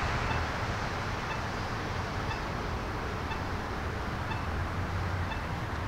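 Steady low rumble of road traffic and wind, with faint high pings repeating about once a second.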